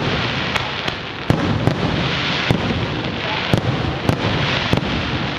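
Aerial firework shells bursting in a fireworks display: a rapid, irregular series of sharp bangs, roughly one every half second to second, over a steady din.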